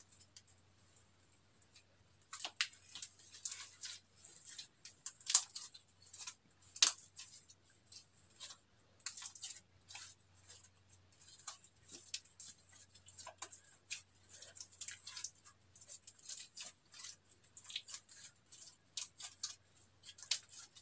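Glossy slime squeezed and kneaded by hand: irregular sticky crackles and pops of trapped air, with two louder pops about five and seven seconds in.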